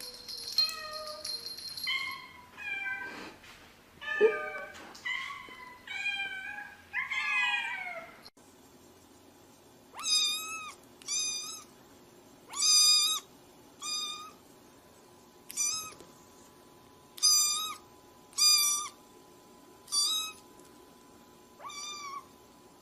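Cats meowing, a run of calls that rise and fall in pitch, some overlapping. About eight seconds in, a kitten mews over and over, a short high call roughly once a second.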